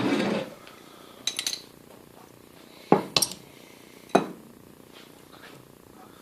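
Metal tools and machine parts being handled during reassembly: a short rasping burst at the start, then a few sharp metallic clicks and clinks.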